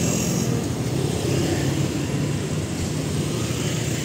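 Engine running steadily, a low rumble under street noise.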